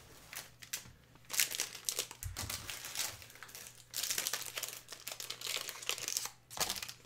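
Thin plastic card sleeve rustling and crinkling as a trading card is handled and slid into it, in irregular bursts, louder about a second and a half in, around four seconds in and near the end.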